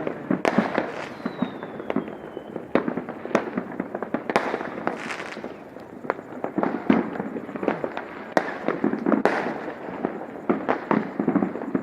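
Fireworks and firecrackers going off: a dense, irregular run of sharp pops and bangs over continuous crackling, with a short falling whistle about a second in.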